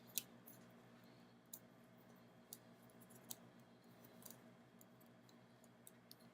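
Near silence broken by faint, scattered clicks of a plastic Blu-ray case and discs being handled, the loudest just after the start.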